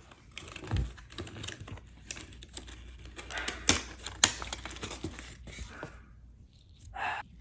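Packaging of a crystal NeeDoh toy being opened by hand: a run of crackling, rustling and sharp clicks for about six seconds, loudest around the middle, then a short rustle near the end.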